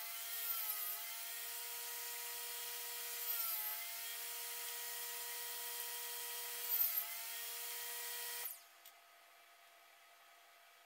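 Table saw running with its blade cutting wood on a miter sled. The pitch dips briefly three times as the blade takes load through the cuts. The sound cuts off abruptly near the end, leaving a faint steady hum.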